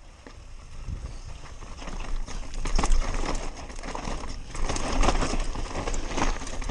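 Enduro mountain bike descending a loose, rocky dirt trail at speed: tyres crunching over gravel and stones with a constant rattle of knocks and clicks from the bike, growing louder over the first few seconds, over a low wind rumble on the helmet camera's microphone.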